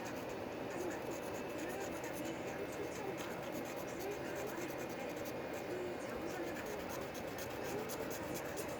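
Light scratching and rubbing in many quick, short strokes, thickest in the second half.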